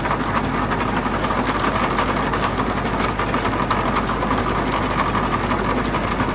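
Tractor-driven chain trencher digging a narrow trench in soil: the tractor's engine runs steadily under load, with dense fast clicking from the digging chain.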